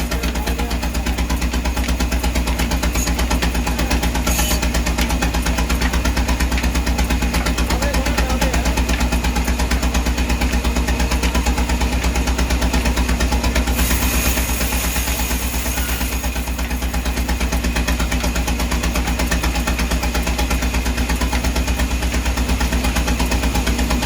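An engine running steadily at an even speed, with a fast, regular pulse and a low hum that holds throughout.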